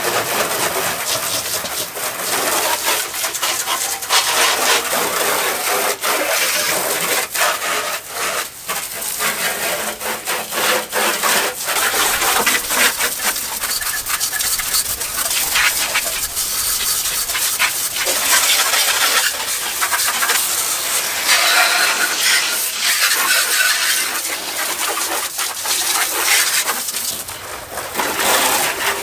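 Brisk scrubbing and rubbing on the truck, a brush or rag worked over a surface in quick, uneven strokes while it is cleaned.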